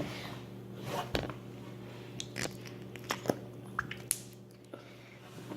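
Slime goop squishing, with a scattered run of small wet clicks and pops as it is worked into the toy's mouth.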